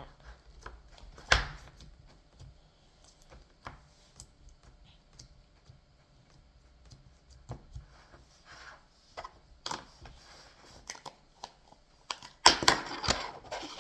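Slime being handled and pressed back into its plastic tub: a run of small, irregular sticky clicks and pops, with one sharp knock about a second in and a louder burst of crackling clicks near the end.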